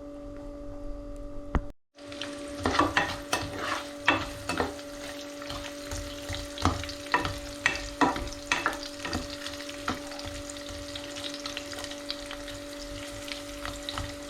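Onions frying in hot oil with whole spices, sizzling, while a utensil scrapes and clacks against the pan as they are stirred. A steady low hum runs underneath, and the sound cuts out briefly about two seconds in.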